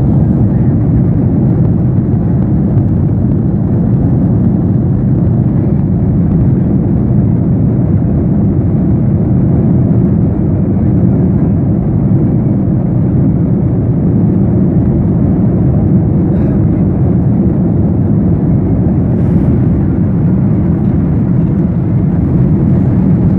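Jet airliner engines at takeoff thrust: a loud, steady low roar that holds for the whole stretch.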